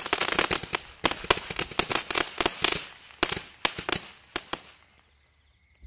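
Flame Thrower Brand 'Incredible' tube firework shooting crackling shots: dense, rapid crackling pops come in waves. They thin to scattered single pops and die away about five seconds in.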